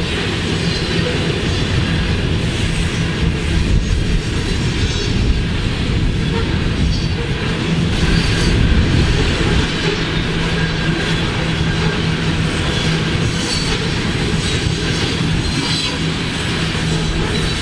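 A freight train's covered hopper cars rolling steadily past, their wheels rumbling and clacking on the rails. Short higher squeals come now and then.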